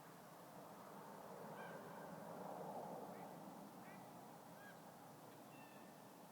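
Faint sound from the sky: a soft, low swell that rises and fades over a steady hiss, with about five short, faint honking calls scattered through it.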